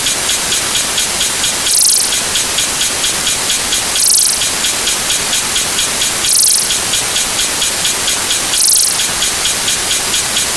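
Huge numbers of overlapping sound effects played at once, merged into a loud, even hiss like heavy rain, with a short bright burst about every two seconds and a fast ticking texture underneath.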